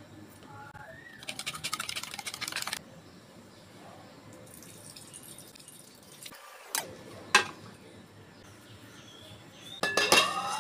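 A spoon clinking rapidly against a cup for about a second and a half, stirring salt into coconut milk, then two sharp knocks. Near the end a glass lid is set onto a metal pot, clattering and ringing.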